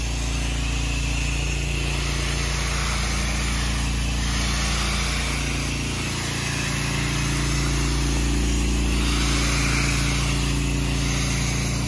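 Pressure-washing rig's engine running steadily. Over it runs a constant hiss from a wand spraying house-wash solution onto inflatable kayaks. The level dips slightly about six seconds in.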